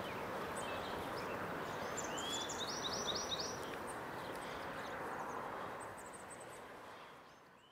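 Steady outdoor background noise with a small bird calling about two to three seconds in: a rising note, then four quick repeated high notes. Faint high chirps come and go, and the sound fades out near the end.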